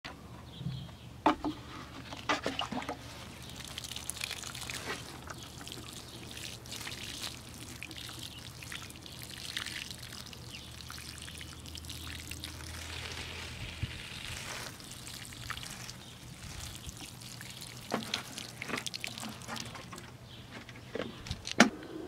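A stream of water pouring and splashing onto bare garden soil, with a few sharp clicks, the loudest near the end.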